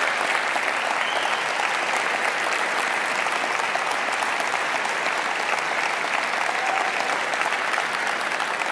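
An audience applauding steadily, a dense patter of many hands clapping.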